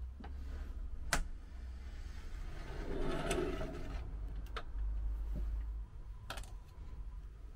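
Plastic clothes hangers and a metal hook being handled: several sharp clicks and knocks, with a short rustling clatter in the middle, over a low steady hum.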